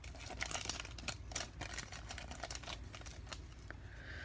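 Faint rustling of a foil trading-card pack and light clicks as a stack of cards is slid out of it and handled.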